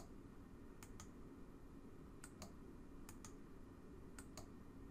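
Faint computer mouse clicks, in quick pairs about once a second, over a low steady hum.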